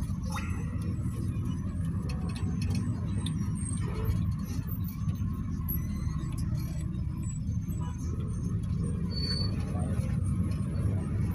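Cabin noise inside a moving GAZelle Next A64R45 minibus: a steady low rumble from its Evotech engine and the tyres on the road, with faint scattered clicks and rattles.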